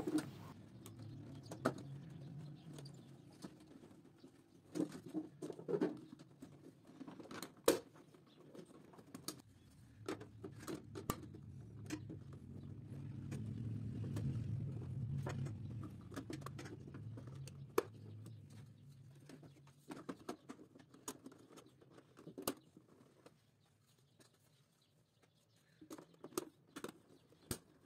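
RAAD plastic slotted wiring-duct covers being pressed onto their ducts by hand: faint, scattered clicks and snaps as the lids catch on the duct fingers, several in quick succession at times.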